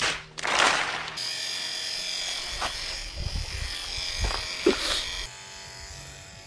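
Electric hair clippers buzzing steadily as they cut hair, after a short loud rushing burst in the first second. The buzz cuts off about five seconds in.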